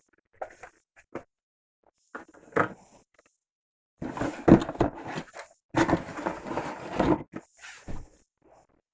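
Handling noises from unboxing: packaging rustling, with knocks and clicks as parts are moved and set down, densest in two stretches in the second half.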